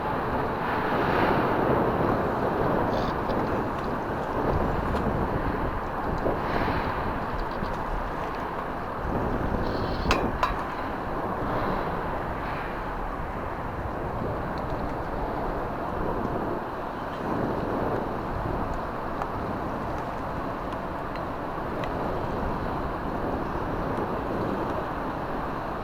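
Steady outdoor noise of wind on the microphone with a low, even rumble, and a brief click about ten seconds in.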